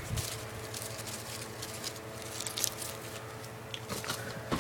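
Light handling noises, scattered rustles and small clicks as objects are picked up and moved, over a steady low hum.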